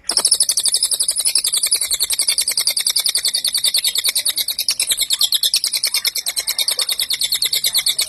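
Caged cililin songbird singing a fast, unbroken rattle of sharp high-pitched notes, about a dozen a second, starting abruptly: the rapid, tightly packed 'nembak rapat' song prized in Indonesian bird-keeping.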